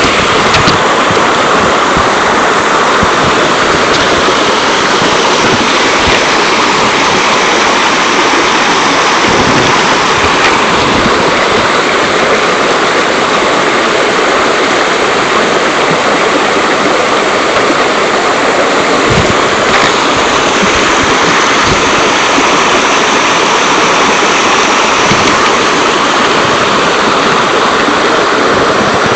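Mountain valley stream rushing over rocks, loud and steady throughout.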